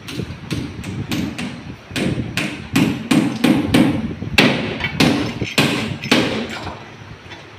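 About twenty sharp knocks at irregular intervals, loudest in the middle, over a steady low background rumble.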